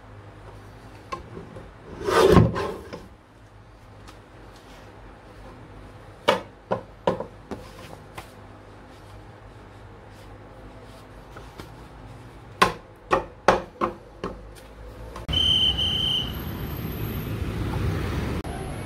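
Sheets of paper handled on a wooden desk: a thump with rustling about two seconds in, then two runs of quick sharp knocks of paper and hands against the wood. Near the end the sound changes to a steady outdoor hiss with a brief high tone.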